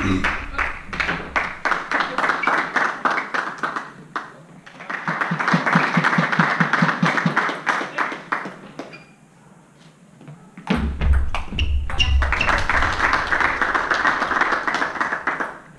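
Spectators clapping in quick, dense runs, broken by a quieter stretch a little past the middle in which a few separate ticks of a table tennis ball on bat and table are heard during a rally. The clapping starts again with a few low thumps.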